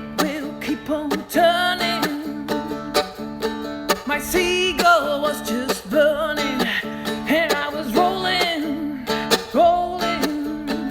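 Seagull acoustic guitar strummed in a steady rhythm, with a woman's singing voice carrying a melody over it.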